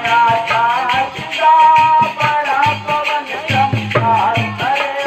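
Holi phag folk song: a high singing voice with held, wavering notes over steady dholak drum beats and a jingling percussion rhythm.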